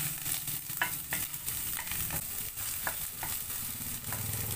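Garlic and onion sizzling in hot oil in a non-stick frying pan while a wooden spatula stirs them, knocking and scraping against the pan about twice a second. It is the sauté stage, the garlic already light brown.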